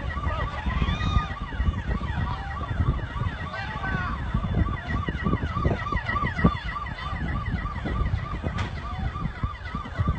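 Emergency vehicle sirens sounding at the scene of a burning airliner: two or more overlapping siren tones in fast repeating sweeps, one about three times a second, over wind rumbling on the microphone.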